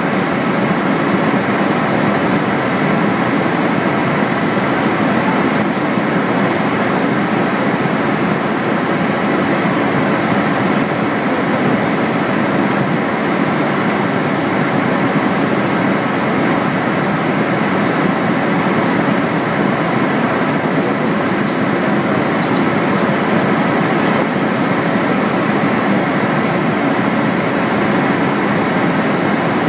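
Steady engine and airflow noise inside an aircraft's cockpit in flight: an even drone with faint steady tones running through it, unchanging in pitch and level.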